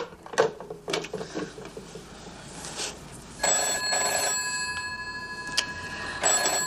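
A telephone handset is put down on its cradle with a clack, followed by a few light knocks. About three and a half seconds in, the telephone's bell starts ringing in two quick rings, with the tone ringing on after them. Two more quick rings come near the end.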